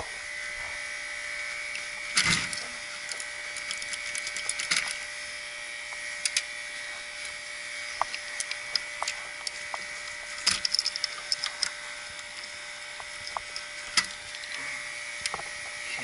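Hands working the wiring of a heat pump's electrical control box: small irregular clicks, snaps and rustles of wires and terminals being handled, in clusters about 2 seconds in, around 4 to 5 seconds and around 10 to 12 seconds. A steady hum runs underneath.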